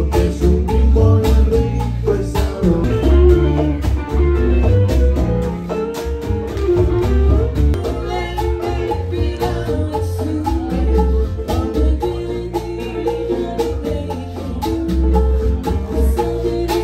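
Background music with a steady beat and strong bass.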